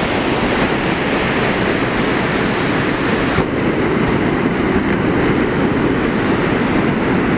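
Steady rush of a fast-flowing river over rapids. About three and a half seconds in, the hiss drops away sharply, leaving a deeper rumble of water.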